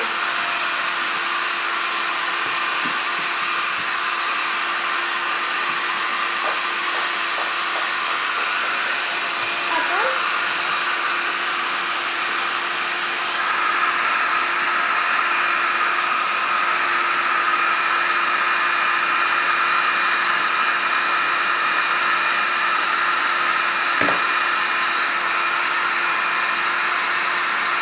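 Hand-held hair dryer blowing steadily, with a constant hum under the rush of air. About halfway through, its sound shifts and gets a little louder.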